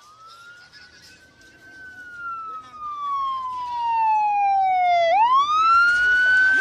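A wailing siren, one slow downward sweep in pitch followed by a quick rise back up, growing much louder, with a hissing rush of noise coming in near the end.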